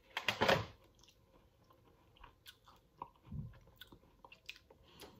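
A bite into a lemon tart held in the fingers, a burst of crunching about half a second in, then chewing with scattered small clicks.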